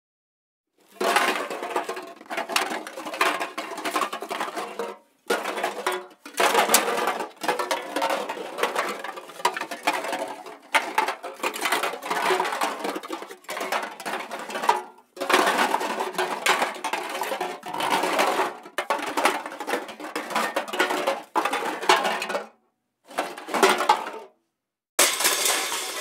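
Empty metal drink cans clattering and knocking against each other in a series of dense bursts, separated by short pauses, with two short bursts near the end.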